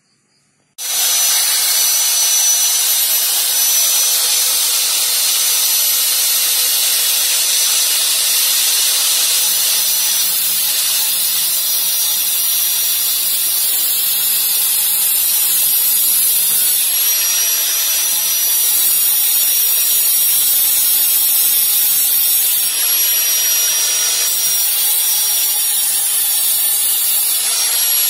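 Angle grinder cutting through a thin steel knife blank, about 1 mm thick. It starts abruptly about a second in, then runs on as a steady high-pitched whine over a harsh hiss.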